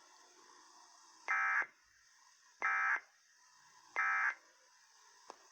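Emergency Alert System End-of-Message code, three short identical bursts of digital data tones about a second and a third apart, marking the end of the alert test.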